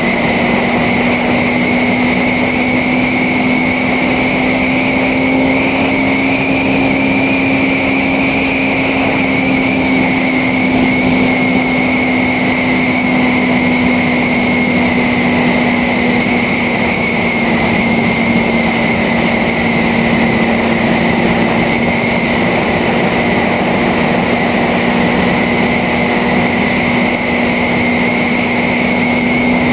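Motorcycle engine running at a steady cruising speed, its note holding almost constant, with wind rushing over the helmet- or bike-mounted camera's microphone.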